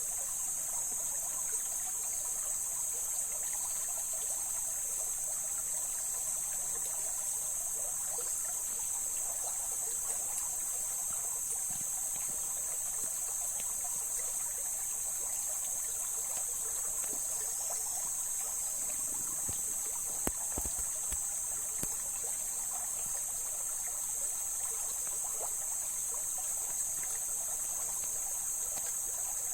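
Mountain stream water flowing and trickling steadily over rocks. A steady high-pitched buzz runs over it throughout, and there is a single short knock about two-thirds of the way through.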